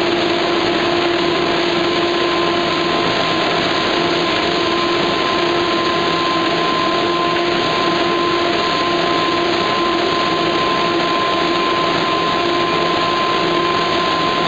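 Corrugated board production line (corrugator) running: a constant mechanical rush with a steady hum and a thin, steady high whine over it.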